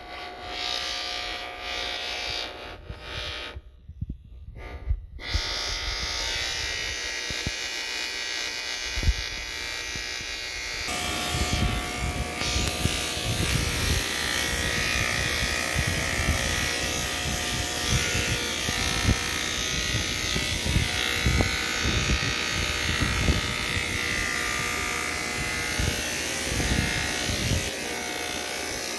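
Electric hair clippers buzzing steadily as they cut through long hair, with a few brief breaks in the first seconds. The buzz grows louder and rougher about a third of the way in, as the blades work close against the head.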